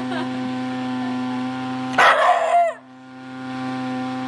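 Shiba Inu vocalizing: a long, steady-pitched moan. About two seconds in it breaks into a short, louder yelp that falls in pitch, then the moan resumes.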